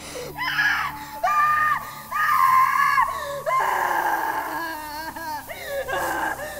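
A young woman screaming in agony: several long, loud screams in a row with short breaks between them, the last ones shorter and shakier.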